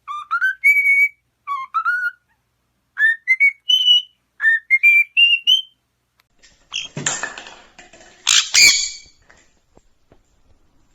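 A bird whistling a series of short notes that each slide upward, in small groups and stepping higher in pitch, followed a little after halfway by a couple of harsh, raspy calls.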